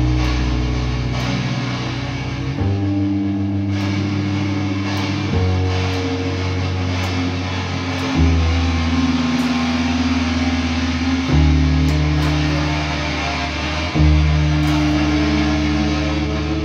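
Improvised instrumental music on bass guitar and guitar. The bass holds long low notes that change about every three seconds, under a dense, sustained guitar texture.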